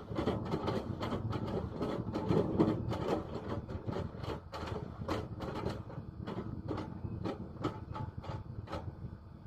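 Hitachi excavator running under load, with dense, irregular knocking and clattering of wood as it works.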